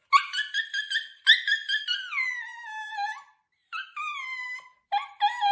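A husky-type dog howling and yowling: a run of short yips, then a long howl that falls in pitch, then after a brief pause more howls.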